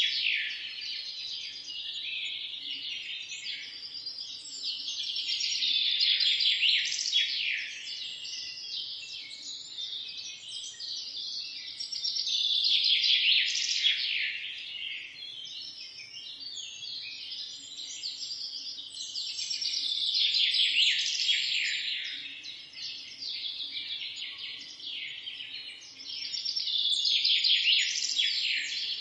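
Many small birds chirping together in a dense, continuous chorus that swells louder about every seven seconds.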